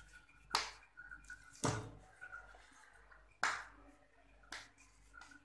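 Hands slapping a ball of soft paratha dough between the palms while shaping it: four sharp slaps, roughly one to two seconds apart.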